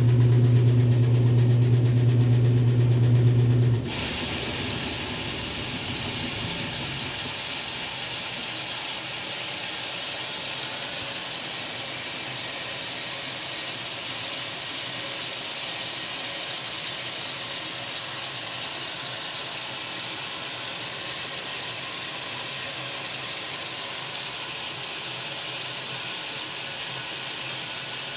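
1962 RCA Whirlpool LJA70 washing machine: a steady low motor hum cuts off sharply about four seconds in, and at the same moment a steady hiss of water rushing into the tub takes over and holds as the machine fills.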